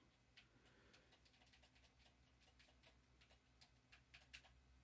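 Near silence: faint room tone with a low hum and scattered faint, irregular ticks.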